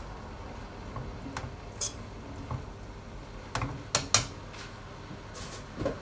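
Metal spoon clinking and scraping against a steel wok as stir-fried vegetables and noodles are tossed: irregular clinks, the loudest two about four seconds in.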